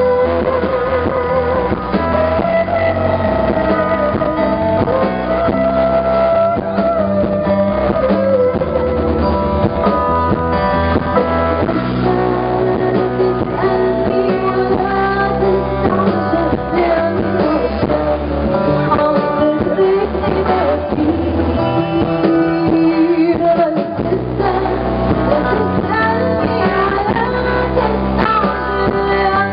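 A woman singing live with a band, an acoustic guitar strumming and a steady low accompaniment underneath.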